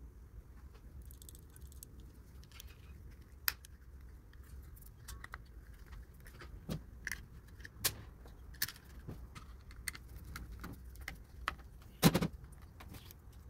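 Small metal parts of a washing machine motor's switch being handled by hand: scattered light clicks and metallic taps, with one sharper knock near the end.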